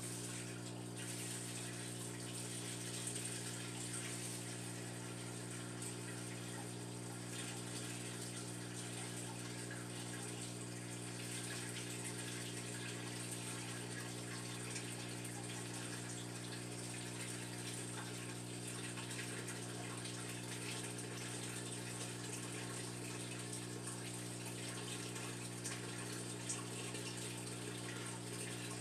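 Water pouring steadily from a bucket into a partly filled aquarium, splashing as it is slowed by a hand over the gravel bed, with a steady low electrical hum underneath.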